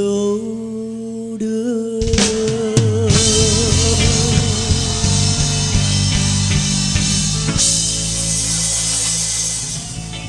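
The closing bars of a live pop ballad. A male singer holds a long final note with vibrato, and the full band swells in with drums about two seconds in. Sustained chords carry on and begin to fade near the end.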